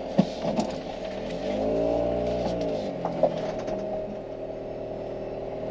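Mini Cooper S R53's supercharged 1.6-litre four-cylinder heard from inside the cabin while driving, its note rising under acceleration and falling back after about a second. Two sharp knocks come near the start and about three seconds in.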